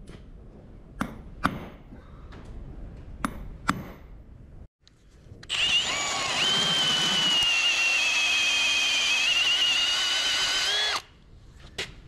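Four hammer blows on a centre punch against the end of a solid steel bar, each a sharp strike with a short metallic ring. Then an electric drill bores into the bar end for about five seconds, a steady whine that cuts off suddenly.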